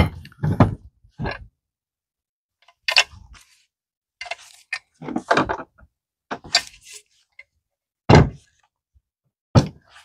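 Stamped-steel pedal support bracket from a 1966 Mustang being handled and turned over on a table. It gives a series of irregular thunks and knocks as the metal hits the tabletop.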